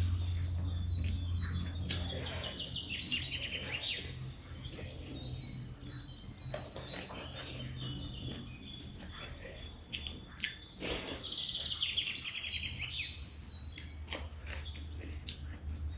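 Birds chirping in repeated falling trills, loudest near the start and again about eleven seconds in, over close-up eating sounds of chewing and short mouth and utensil clicks. A low steady hum runs underneath.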